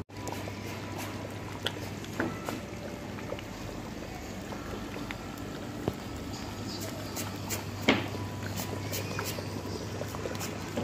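Thick curry gravy bubbling in a large aluminium pot, with many small pops as bubbles burst at the surface, over a steady low hum. One pop about eight seconds in is louder than the rest.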